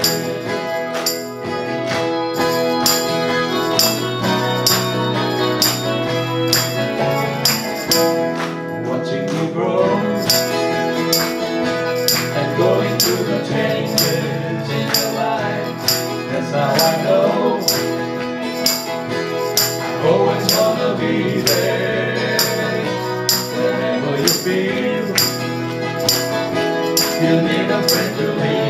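Live band playing an instrumental passage of a country-pop song on electric bass, acoustic guitar and keyboard, over a steady jingling percussion tick about twice a second.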